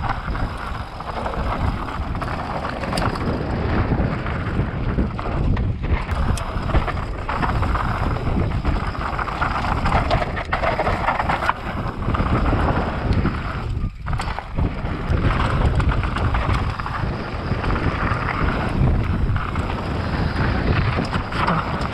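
Wind rushing over the microphone with the steady rumble and rattle of a mountain bike riding downhill on a dirt trail.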